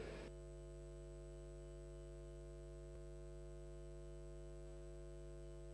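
Faint, steady electrical mains hum from the chamber's microphone and sound system: a set of steady tones that sets in a moment after the start.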